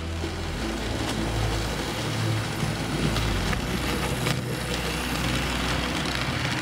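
A model train running along the track: a steady electric motor hum and wheel noise, with a few faint clicks about halfway through.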